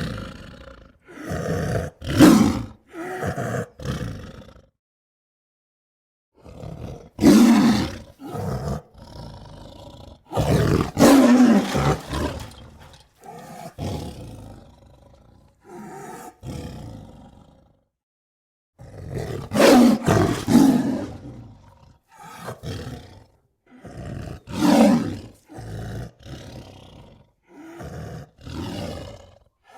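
Tiger roaring and growling in a series of calls, several loud roars of a second or two each with lower growls between, broken twice by a second or so of silence.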